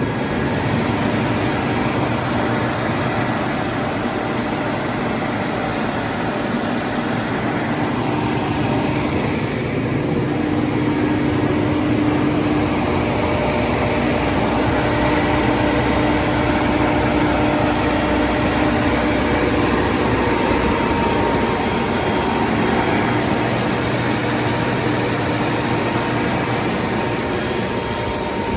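Generator engine running steadily under power, a loud continuous drone with a steady whine on top.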